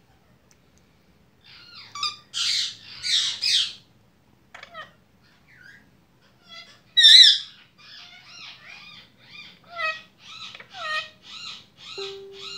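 Lutino Indian ringneck parakeet vocalizing: a few loud calls about two seconds in, another loud call around seven seconds, then a run of short repeated notes, about two a second.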